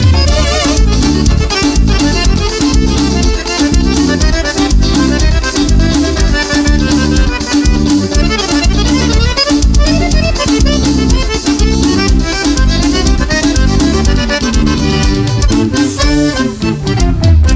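Instrumental forró do beiradão dance music: a melodic lead over a steady, driving drum and bass beat, with no singing.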